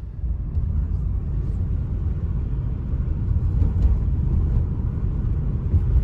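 Steady low rumble of a car travelling at speed, heard from inside the cabin: road and tyre noise with the engine underneath.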